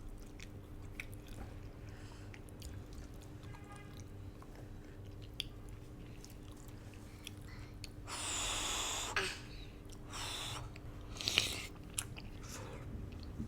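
Close-miked mouth sounds of someone eating: soft chewing with small wet clicks, then three louder breathy bursts about eight, ten and eleven seconds in.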